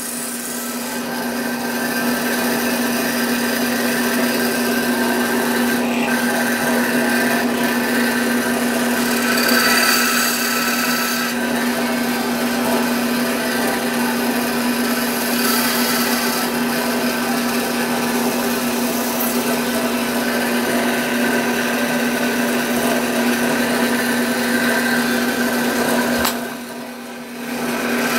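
Bandsaw running steadily, its motor humming under the hiss of the blade cutting wood, with a short drop in level near the end.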